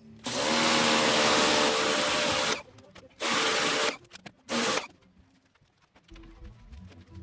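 A small electric motor-driven tool run in three bursts: one of about two seconds, then two short ones. Each burst is a motor hum under a loud hiss.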